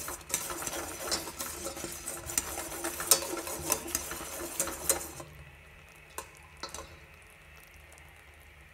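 Wire whisk stirring and clicking against a steel saucepan of thickened, bubbling chocolate syrup, with a sizzle from the boiling syrup. The stirring stops about five seconds in, leaving only a couple of faint clicks.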